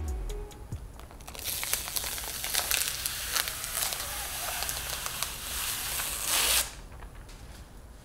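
Clear protective plastic film being peeled off the glossy faceplate of a Tesla wall connector, crinkling and crackling for about five seconds and loudest just before it comes free.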